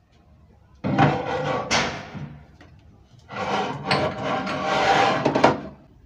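Scraping and rubbing against a wooden kitchen cabinet, in two long stretches: one starting about a second in, the other from about three seconds to near the end.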